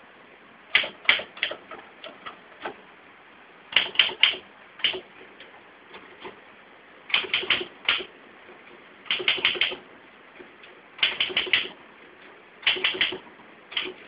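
Manual typewriter keys striking in quick clusters of three to five clacks, a cluster every two seconds or so, with a few single, lighter clicks in between.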